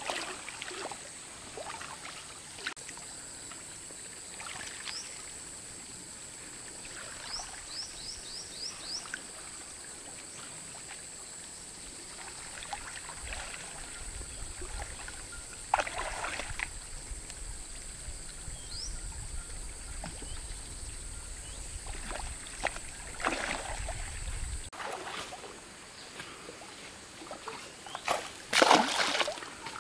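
Water splashing and sloshing in irregular bursts, the loudest near the end, with trickling in between. A bird gives a quick run of short rising chirps about eight seconds in, over a steady high-pitched hum.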